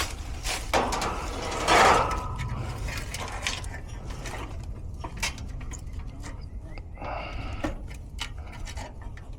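Hand work on equipment: rubbing, scraping and scattered clicks over a steady low hum, with the loudest scrape about two seconds in.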